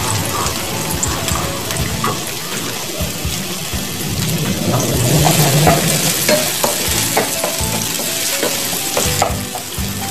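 Chopped garlic sizzling in hot oil in a nonstick frying pan, stirred with a wooden spatula that scrapes and taps against the pan.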